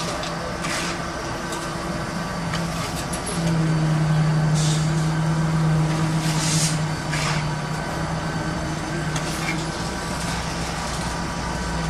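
An engine running steadily, a low drone that swells for a few seconds in the middle, with several short hisses over it.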